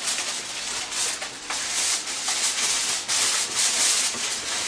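Handling noise: something rubbing and scratching right against the phone's microphone in a run of quick, uneven strokes.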